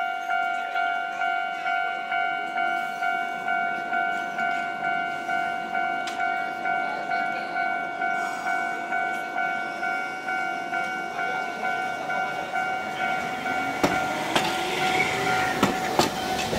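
Level crossing warning signal ringing steadily, a pulsing electronic tone about two and a half rings a second. From about 13 seconds in, Hankai Tramway car 501 pulls out, its wheels clacking over rail joints and points.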